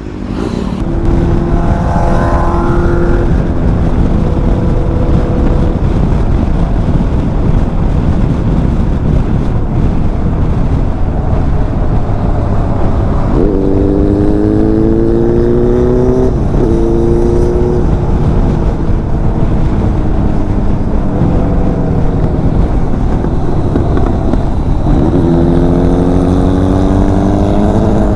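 Bajaj Dominar 400's single-cylinder engine riding along under heavy wind rush on the microphone. The engine note rises under acceleration about halfway through, drops with a gear change and climbs again, then rises once more near the end.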